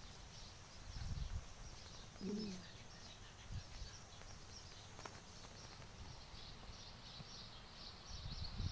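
Faint outdoor ambience with small birds chirping in the background, and a few low muffled thumps, the strongest near the end. A brief low pitched sound comes about two seconds in.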